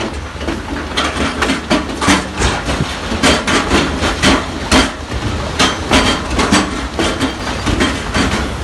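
Large stones knocking and clattering irregularly, several loud knocks a second, over the steady low drone of a heavy diesel engine working nearby.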